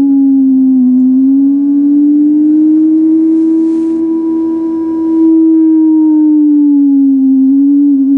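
Guitar music: a single long sustained guitar note that slowly slides down, up and back down in pitch.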